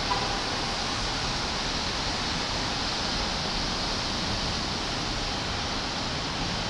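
Distant Embraer E175 jet with its two GE CF34-8E turbofans at takeoff thrust, heard as a steady, even rushing noise with no rise or fall as it starts its takeoff roll.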